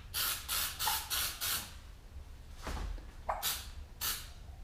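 Aerosol can of 1K acrylic primer filler spraying in short bursts. There are four quick bursts, a pause of about a second, then three more.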